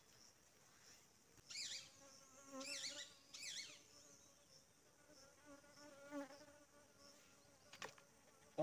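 Near silence with a faint, steady insect buzz, broken by three short high chirps between about one and a half and three and a half seconds in.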